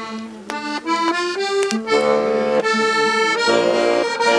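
Accordion playing: a quick run of short notes, then sustained chords.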